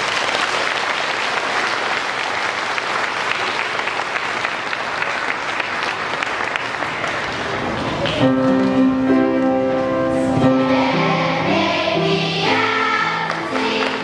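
Audience applauding. About eight seconds in, music begins, with held chords and singing.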